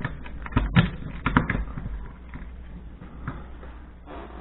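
A quick run of sharp taps and knocks about half a second to a second and a half in, from a screwdriver and fingers handling the wires and plastic case of a wall thermostat, then only faint handling noise.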